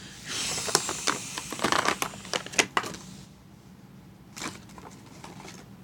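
Toy packaging crinkling and crackling as it is handled, with many sharp clicks, for about three seconds, then a single soft knock.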